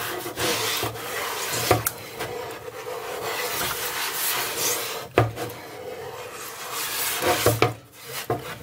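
Scouring sponge scrubbed hard back and forth over an enamel-coated griddle plate in a soapy sink: a continuous scratchy rubbing with a few sharp knocks, stopping near the end.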